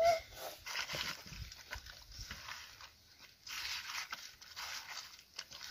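Hand mixing raw chicken pieces with cut brinjal, onion and spices in a metal kadai: wet squishing and rustling that comes and goes in irregular spurts.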